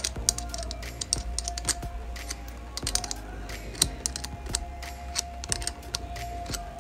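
Irregular light clicks, taps and clinks of small parts and hand tools being handled during motorcycle signal-light wiring work, in no steady rhythm.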